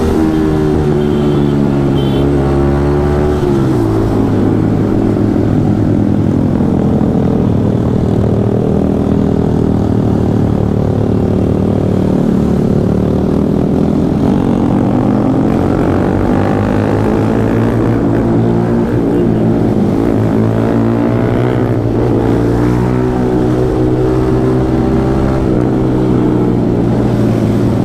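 Yamaha MT-15's 155 cc single-cylinder engine running under way at cruising speed. The pitch rises and falls with the throttle: it drops near the start and climbs again about halfway through.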